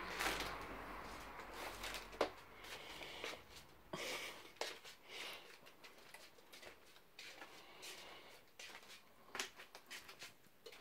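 Faint footsteps in slippers on a hard floor, heard as scattered soft clicks and light rustles.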